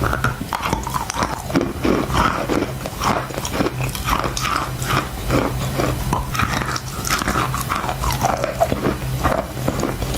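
Close-miked crunching and chewing of chalk, with bites and crunches coming one after another throughout and a faint steady low hum underneath.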